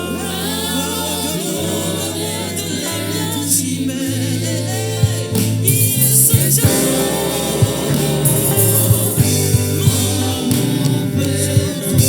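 Gospel music: voices singing over a band with sustained bass notes. Sharp drum or percussion hits come in about five seconds in.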